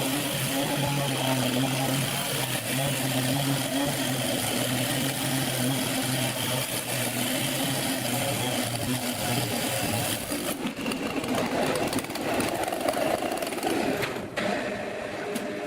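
Sawmill machinery running: a steady engine hum, which gives way to a rougher, noisier machine sound about ten seconds in.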